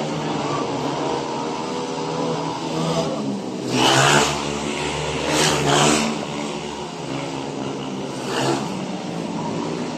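Speedway motorcycles' 500 cc single-cylinder methanol engines racing around the track, rising and falling as the bikes go round. There are loud surges about four, six and eight and a half seconds in.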